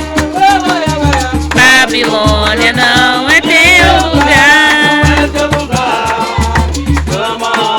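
Live band playing upbeat gospel music, with a pulsing bass beat, percussion and a wavering lead melody.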